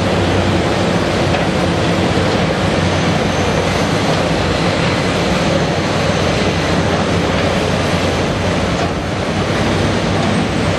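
Caterpillar 320DL excavator's diesel engine running steadily under digging load, easing slightly about nine seconds in.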